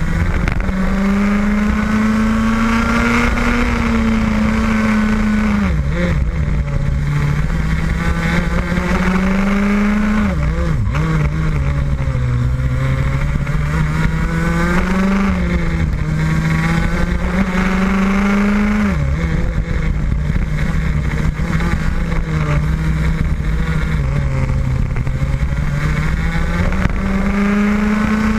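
Rotax Max 125cc single-cylinder two-stroke kart engine at racing speed, heard from on board the kart. Its pitch climbs steadily along each straight and drops sharply when the throttle comes off for a corner, five or six times over, with a steady low rumble beneath.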